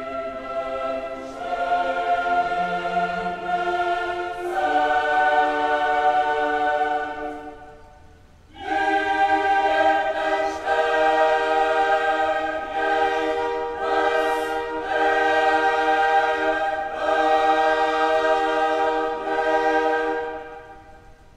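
Background music: a choir singing slow, held chords that change every couple of seconds, with a short break about a third of the way in and a fade near the end.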